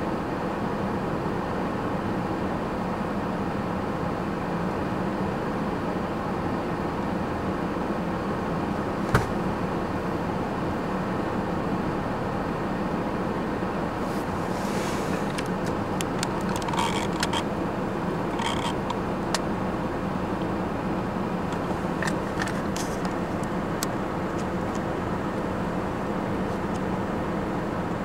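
Steady vehicle engine and road noise, with one short sharp knock about nine seconds in and a few faint clicks later on.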